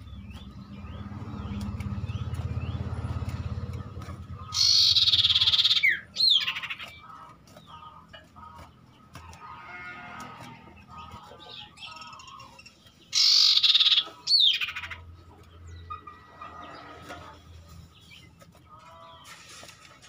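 Common iora (cipoh) calling twice, each time a loud harsh rattling churr of about a second and a half followed by a quick down-slurred whistle, with softer chirps in between. A low hum sits under the first few seconds.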